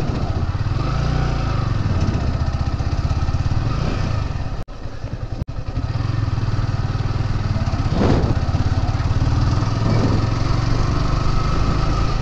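Sport motorcycle engine running at low road speed, its note rising and falling a little with the throttle. The sound briefly cuts out twice around the middle.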